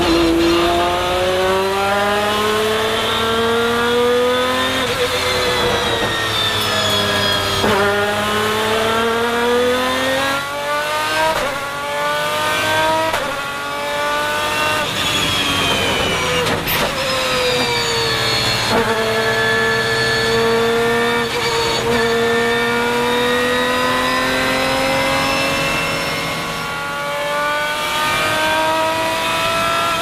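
Lamborghini Murciélago R-SV GT1's 6.5-litre V12 race engine heard from inside the cockpit under hard acceleration, its pitch climbing and dropping back at each upshift. About halfway through the revs fall away as the car slows for a corner, then it pulls up through the gears again.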